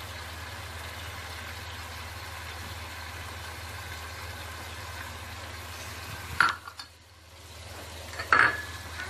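Onion-tomato masala with spices frying in hot ghee in a pan, a steady sizzle. A utensil clinks sharply against the pan twice, about six and eight seconds in, the second with a short metallic ring.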